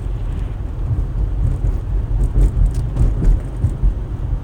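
Road and engine rumble inside a moving car's cabin: a steady low drone with a light hiss over it, and a few faint knocks a couple of seconds in.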